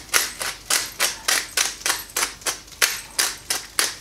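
Hand-twisted pepper grinder grinding black pepper, a quick even run of crunchy clicks about three a second.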